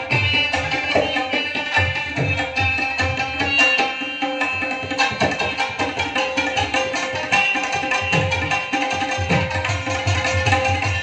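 Pashto folk ensemble of tabla, rubab and harmonium playing an instrumental passage: quick tabla strokes with the bass drum's low notes sliding down, over held harmonium notes and plucked rubab.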